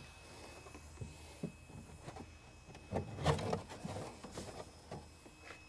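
Handling sounds: a scatter of light knocks and rubs, with a short clatter about three seconds in, as gear is handled at the car.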